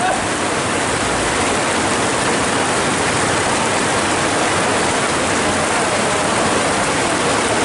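Heavy downpour: a steady, even hiss of pouring rain and floodwater running over the road.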